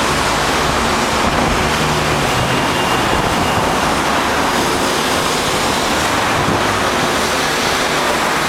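Strong wind blowing over the microphone: a loud, steady roar with an uneven low rumble.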